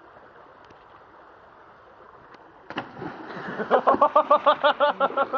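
Steady rush of a shallow stream, then a splash about two and a half seconds in as a person lands in the water, followed by loud, rapid, rhythmic laughter.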